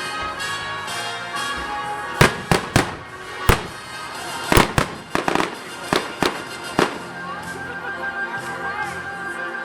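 Fireworks bursting in a quick run of about a dozen sharp bangs between about two and seven seconds in, over music.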